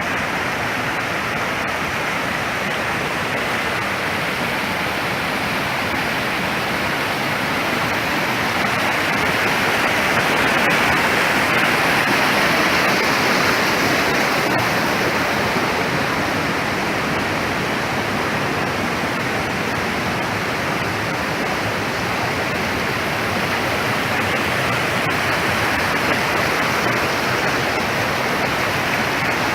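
Large waterfall's falling water, a steady, even rush, slightly louder about ten seconds in.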